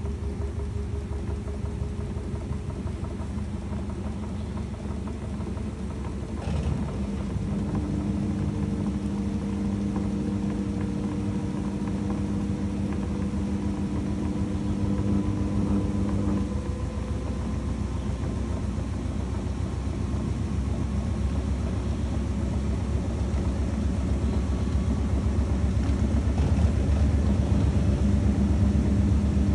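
LG Turbodrum top-loader washer spinning on its direct-drive motor: a low rhythmic hum with a motor whine that slowly rises in pitch as the tub speeds up, growing louder near the end.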